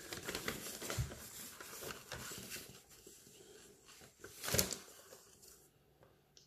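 A newspaper rustling faintly as it is held and moved, with one louder crackle of the paper about four and a half seconds in.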